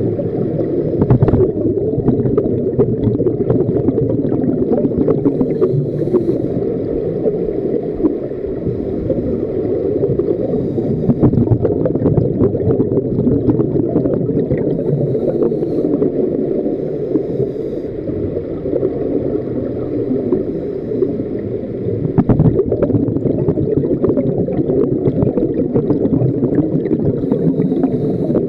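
Scuba divers' regulators breathing underwater, exhaled bubbles rising: a steady muffled rush with frequent small crackles, as heard through an underwater camera.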